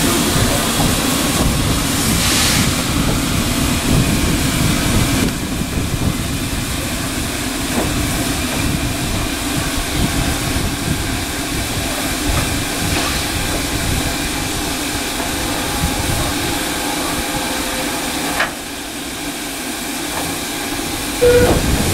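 Saddle-tank steam locomotive standing with steam up, giving off a steady hiss of steam. A brief louder burst comes near the end.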